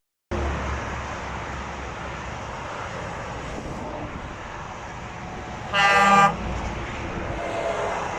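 Road traffic running steadily, then a truck's air horn sounds one short blast, about half a second long, some six seconds in; the horn is the loudest thing heard.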